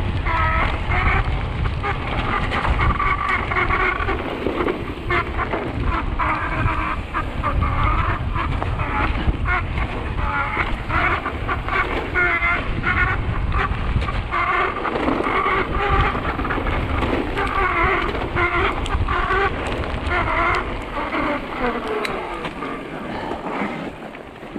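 Mountain bike descending a wet, muddy trail: continuous rumble of wind and tyres over the ground, with short high squeals of the disc brakes again and again.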